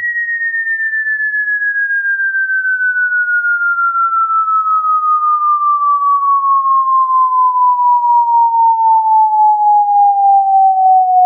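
Falling-bomb whistle sound effect: a single pure tone that glides slowly downward and grows steadily louder.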